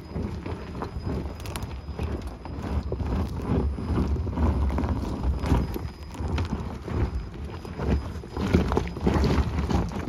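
Rivian R1T electric pickup's tyres crunching slowly over loose rocks and gravel on a steep climb. Stones knock and click irregularly over a steady low rumble.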